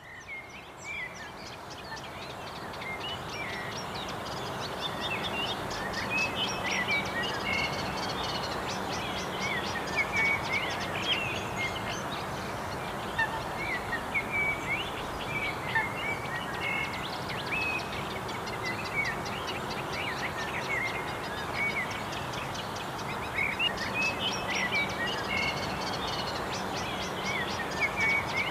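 A chorus of many small birds chirping in quick short calls over a steady background hiss, fading in over the first few seconds.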